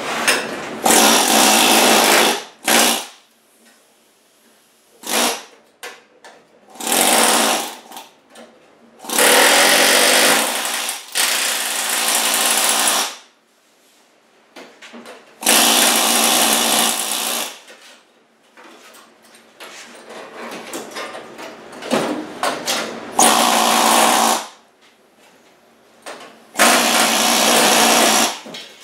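Pneumatic air hammer with a chisel bit cutting through the rusted sheet steel of a 1963 Chevy C10 door bottom. It runs in repeated bursts of about one to two seconds, with short pauses between.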